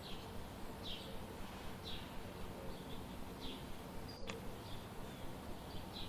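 A bird chirping over and over, short high chirps about once a second, over a steady low background hiss. A single sharp click about four seconds in.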